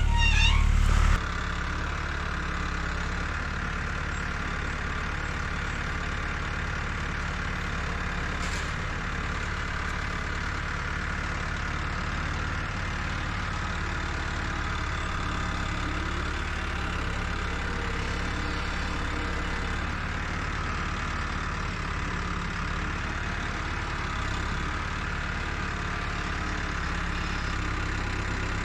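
Old tractor engine idling steadily, a little louder for the first second before dropping to an even, lower hum.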